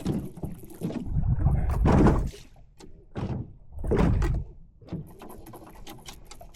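Knocks, bumps and scraping from handling gear in a boat while working a hook out of a caught fish, loudest in two spells about two seconds long, then lighter clicking.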